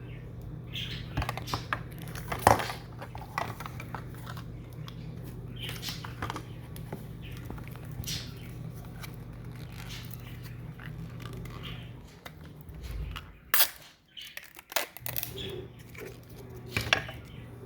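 Small plastic packaging being opened and handled: crinkling and rustling with scattered clicks and taps, the sharpest about two and a half seconds in and near the middle of the last third. A steady low hum runs underneath and drops out for a couple of seconds near the end.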